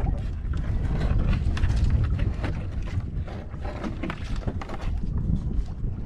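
Wind buffeting the microphone on an open boat as a steady low rumble, with scattered light clicks and knocks through it.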